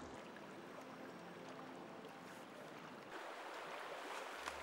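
Shallow river water running over a stony bed: a steady, even rush of flowing water.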